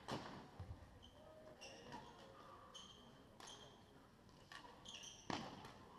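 Badminton rally sounds: sharp racket-on-shuttlecock hits a second or so apart, with short high sneaker squeaks on the sports hall floor between them.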